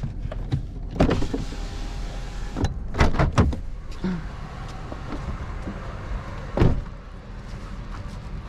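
A truck running low and steady, with a few sharp knocks and thumps over it: one about a second in, a cluster around three seconds in, and one past six and a half seconds.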